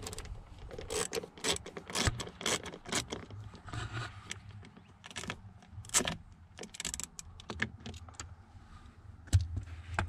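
A ratchet on a long socket extension clicking in short irregular runs as a 5.5 mm bolt is backed out of the plastic steering-column cover, with light metallic rattles between strokes.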